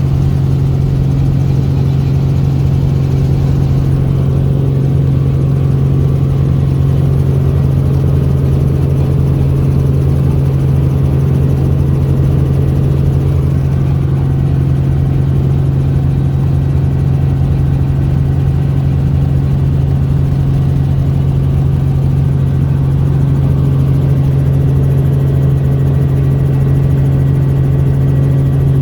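Small helicopter running: a loud, steady drone with a strong low hum that holds unchanged throughout.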